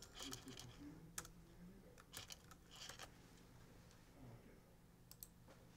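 Faint, scattered keystrokes on a computer keyboard as a login name and password are typed, a few separate clicks spread over several seconds, over a low steady hum.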